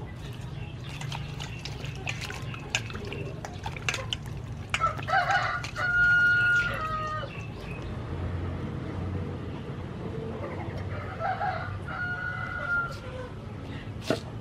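A rooster crowing twice, the first time loud about five seconds in and again more faintly around eleven seconds, each crow ending on a long held note. In the first seconds there are light splashes and clicks from vegetables being washed in a metal bowl of water, and a sharp knock comes near the end.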